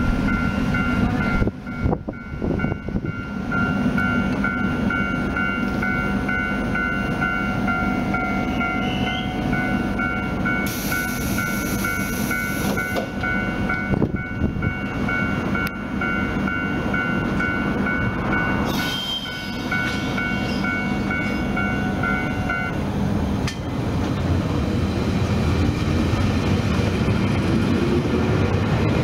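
JR Hokkaido 721 series electric train at a station platform: equipment running steadily with a steady high tone, a hiss of air about eleven seconds in and again briefly near nineteen seconds, then the train pulling out, its motor sound rising and the rumble of the wheels growing louder over the last few seconds.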